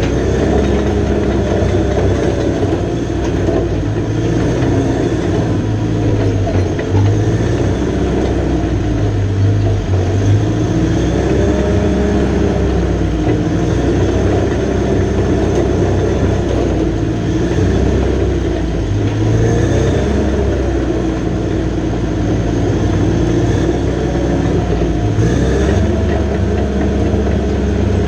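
John Deere 450J LT crawler dozer's diesel engine running under working load, its pitch rising and falling every few seconds as the load changes.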